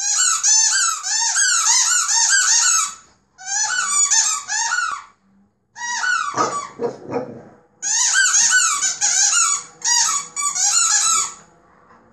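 A rubber squeaky toy being chewed by a French bulldog puppy: rapid high squeaks, about four or five a second, in several runs of one to three seconds with short pauses between. A short stretch of lower, rougher noise comes about halfway through.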